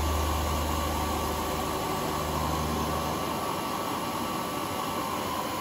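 Manual combination milling machine running under power feed, its end mill cutting a small aluminium standoff: a steady whine and hiss, with a low hum underneath that stops about three seconds in.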